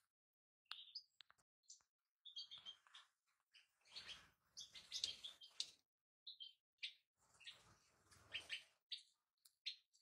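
European goldfinches giving faint, short chirps and twittering calls in scattered bursts, with some duller low noise mixed in about four seconds in and again about eight seconds in.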